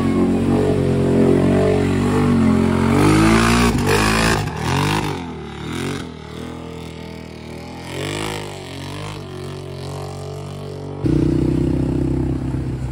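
ATV engines revving in mud: a quad stuck in a mud hole revving hard, its spinning wheels throwing mud, then quieter, more distant revving that rises and falls. About eleven seconds in the sound jumps to a louder, steady engine note.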